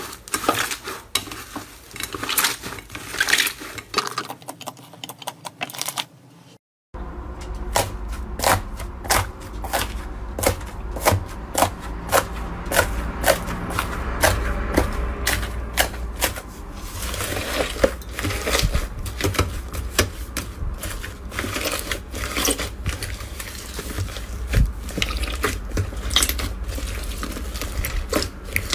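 Hands squeezing and kneading slime, making sticky crackling and popping. After a short break, hands press and squish slime packed with small foam beads, giving a rapid crisp crunching and clicking.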